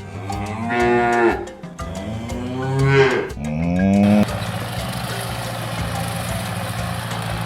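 Cattle mooing, three moos in quick succession. About four seconds in the sound cuts abruptly to the steady running of an idling engine.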